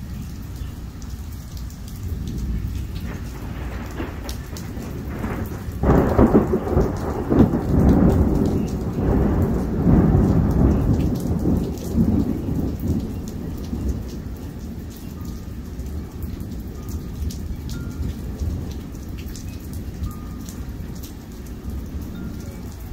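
Heavy rain falls steadily on a patio and yard while a long peal of thunder rumbles. The thunder builds about three seconds in, is loudest for several seconds in the middle, then rolls away, leaving the rain.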